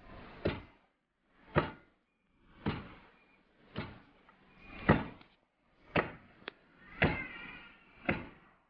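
Long wooden pestle pounding fufu dough in a mortar, a dull thud about once a second, eight strokes in all.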